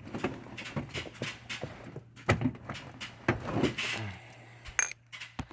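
Irregular clicks, knocks and rustling of hands at work, over a low steady hum, with one sharp click near the end that is the loudest sound.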